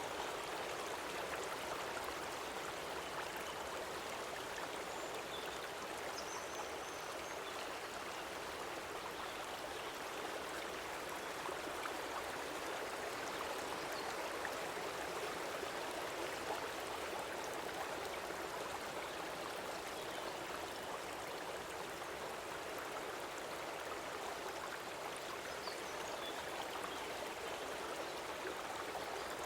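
Stream water flowing in a steady, even rush with no breaks or changes.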